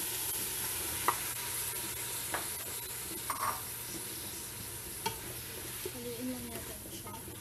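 Beef tripe sizzling in hot oil in a metal pot with sautéed garlic, onion and ginger, a steady frying hiss. A few light knocks of a utensil or bowl against the pot.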